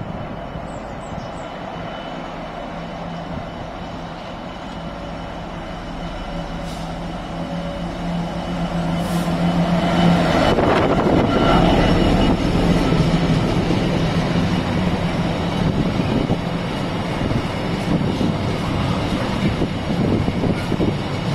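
A train approaching and passing on the main line. A steady low hum grows louder, then loud rolling rail noise takes over about ten seconds in and carries on to the end.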